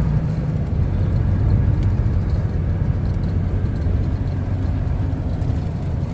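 A motor vehicle's engine running with road rumble: a steady low rumble.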